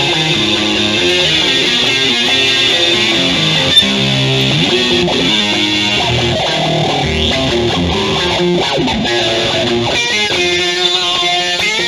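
Instrumental dub jam led by electric guitar, with notes and chords changing steadily throughout.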